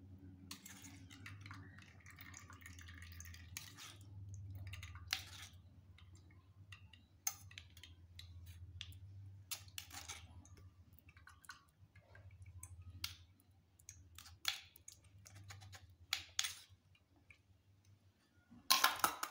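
A metal spoon scraping and tapping against a steel tea strainer as soaked tamarind pulp is pressed through it: scattered short clicks and scrapes, with one louder, longer scrape near the end.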